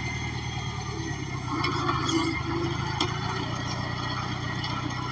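Engine running steadily while a makeshift corn row planter is driven along the field, with a few light clicks and rattles about two to three seconds in.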